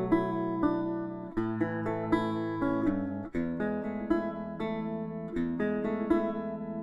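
Background music: an acoustic guitar picking a run of plucked notes over ringing chords.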